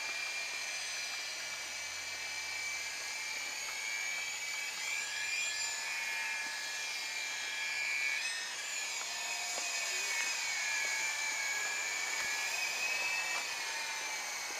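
Radio-controlled model helicopter in flight: a high motor-and-rotor whine that drifts up and down in pitch as the throttle changes.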